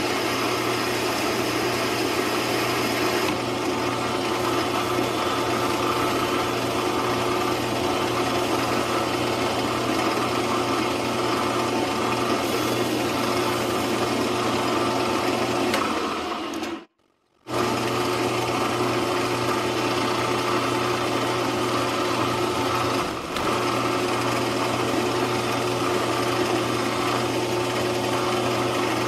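Small benchtop metal lathe running steadily with a motor and gear whine while its tool takes the final cut, turning a 12L14 steel pin down to diameter. The sound cuts out abruptly for about half a second a little past halfway, then resumes unchanged.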